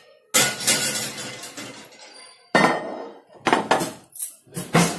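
Metal kitchen vessels and utensils clanging and clattering as they are handled and set down: one loud clang that rings on just after the start, then a quick run of sharper knocks and clinks in the second half.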